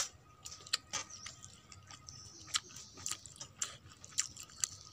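Irregular sharp wet clicks and smacks of eating soaked rice (panta bhat) by hand from a metal plate, a few every second.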